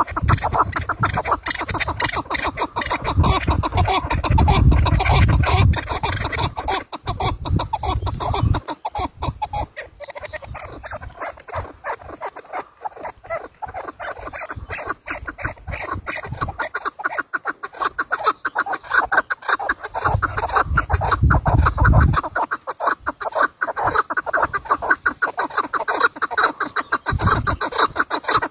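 Chukar partridges calling: a rapid, unbroken series of short clucking "chuk" notes. A low rumble comes and goes beneath it, twice.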